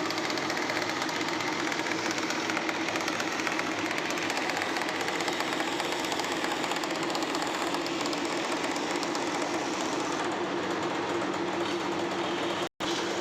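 A woodworking power tool's motor running steadily under load with a fast, even chatter. It drops out for an instant near the end.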